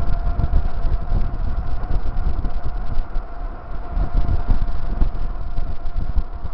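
Wind buffeting the microphone of a handlebar-mounted camera on a bicycle riding fast downhill: a loud, gusting low rumble with a steady hum above it.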